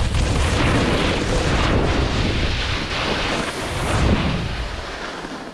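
Wind buffeting the microphone of a camera moving downhill at speed, with the hiss of snowboard edges carving through groomed snow. The hiss swells with the turns, loudest about four seconds in, and the sound eases off near the end.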